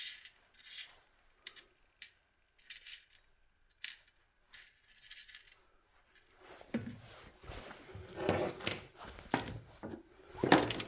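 Tools and small parts handled on a workbench: brief rustles and clicks at first, then busier clattering and knocks in the last few seconds.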